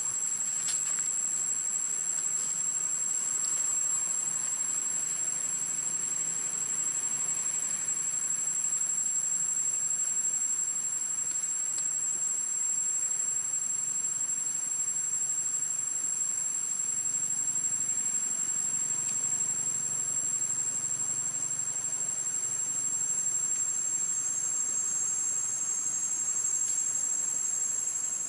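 A chorus of cicadas droning steadily at a high pitch, several tones held at once without a break, one of them edging slightly higher near the end.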